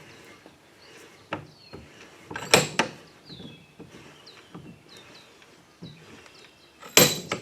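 Metal clanks and knocks from a bench vise being worked to squeeze a lawn mower tire and break its bead off the rim, with two loud ringing clanks, one about two and a half seconds in and one near the end.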